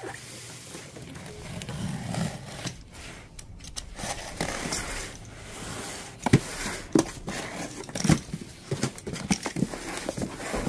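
Packaging and boxed items being handled while a box is unpacked: rustling and scraping, then a run of sharp knocks and taps in the second half.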